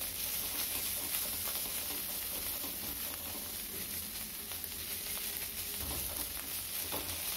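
Grated onion and ginger-garlic paste sizzling steadily as they fry in oil in a non-stick kadhai, stirred with a silicone spatula: the onion-garlic base being browned for a masala.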